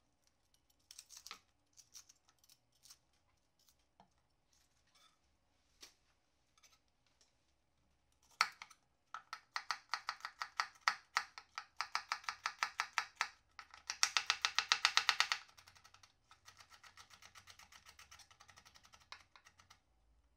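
Kitchen knife chopping an onion on a cutting board: a few faint clicks at first, then sharp, even chopping strokes about four a second from roughly eight seconds in, a quicker burst of strokes a little later, and light taps near the end.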